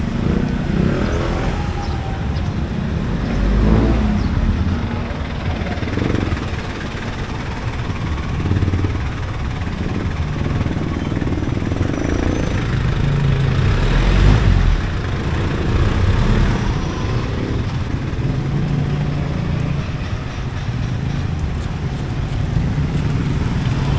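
Street traffic: motor vehicles passing close by over a constant low rumble, with the loudest passes about four and fourteen seconds in.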